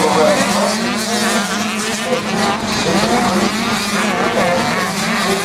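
Several motocross dirt bikes racing, their engines revving up and down over one another, with a steady low hum underneath.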